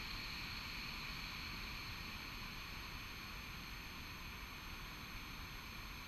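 Steady, faint background hiss with a low rumble underneath: forest air and recorder noise, with no distinct event.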